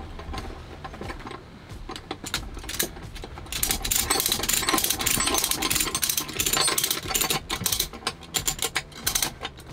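Ratchet strap mechanism clicking rapidly as it is worked, many quick clicks in runs, sparse at first and dense from about three and a half seconds in until shortly before the end.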